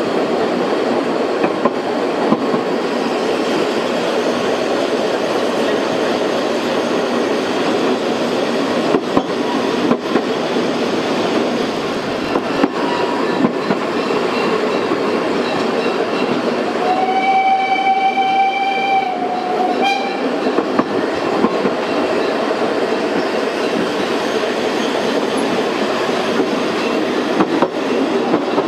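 Steady running noise of a 750 mm narrow-gauge steam train heard from aboard, with the rumble and rail clatter of the carriages. About halfway through, the locomotive's steam whistle sounds one long blast of about two seconds, followed by a short one.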